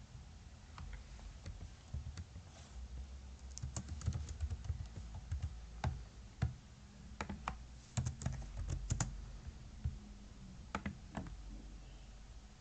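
Typing on a computer keyboard: faint, irregular key clicks in short runs, with pauses between.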